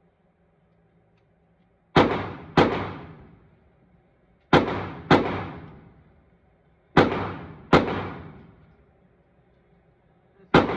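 Pistol shots from a .40-calibre handgun: three quick pairs of shots a couple of seconds apart, then a single shot near the end, each ringing out with a long echoing decay.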